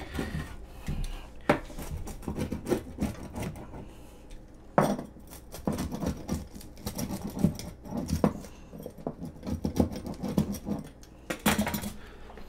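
Rolling pizza cutter wheel cutting through a baked frozen pizza and scraping on a plastic cutting board, in irregular strokes with clicks; the crust is soft, not crispy. Near the end comes a louder knock as the cutter is set down on the board.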